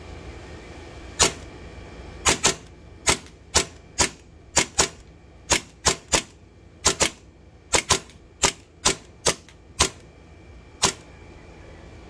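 WE Tech T-Rex Hi-Capa 5.1 gas blowback airsoft pistol firing semi-automatic, about twenty sharp shots at an uneven pace, some in quick pairs, the slide cycling on each shot.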